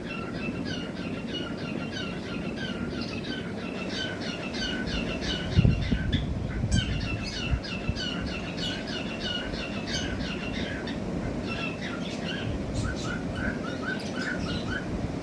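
Cockatiels chirping in quick, short calls, several a second, over a steady low rumble, with a couple of low thumps about halfway through.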